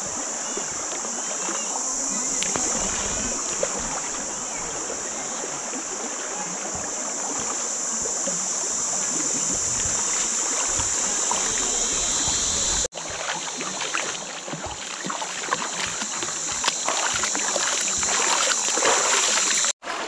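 A river flowing, its water rushing steadily, with a steady high-pitched hiss over it. The sound breaks off for an instant about thirteen seconds in and again near the end.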